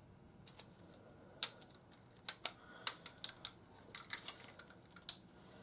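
Hard plastic toy parts clicking and tapping irregularly, in small clusters, as the Fans Toys Iceman (Air Raid) leg is handled and fitted onto a Superion combiner figure.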